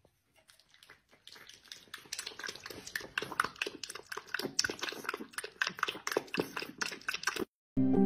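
A puppy feeding at its bowl, a fast, irregular run of small clicking mouth sounds that starts about a second in and stops abruptly near the end. Soft music with sustained notes comes in just at the close.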